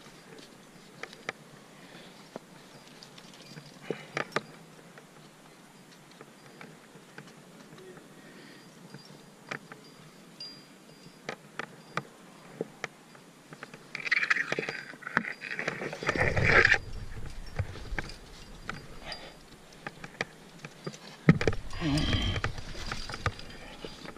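Metal climbing gear, carabiners and protection on a trad rack, clinking in scattered light clicks as the climber moves. About halfway through and again near the end come two louder stretches of rustling and scraping.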